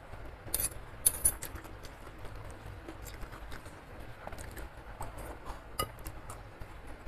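Close-miked eating sounds: a person chewing and smacking mouthfuls of food, with sharp wet mouth clicks. The loudest cluster comes about half a second to a second and a half in, with another near six seconds.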